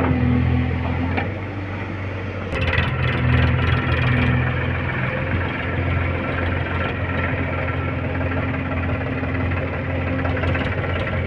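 Heavy diesel machinery engine running steadily with a low, even hum. About two and a half seconds in it gets louder and noisier.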